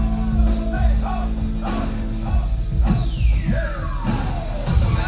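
Rock-styled music with a singing voice. About halfway through, a high tone sweeps steadily down in pitch over about two seconds.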